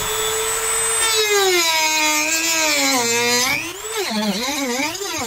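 A corded Dremel rotary tool whines at high speed as it cuts through the fiberglass resin that bonds the trailer's floor to the wall. Its pitch holds steady for about a second, then drags down and wavers up and down as the tool is loaded into the cut.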